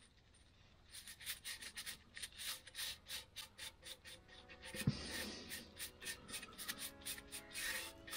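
A paintbrush stroking and dabbing paint onto the sheet-metal door rail of a VW T2 bay window camper, making quick scratchy bristle strokes, several a second. There is one knock about five seconds in.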